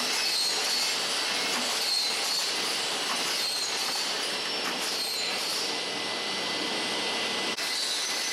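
Wooden crate production-line machinery running: wire-stitching and assembly machines and a conveyor making a continuous dense mechanical clatter, with a high metallic squeal that recurs every second or so.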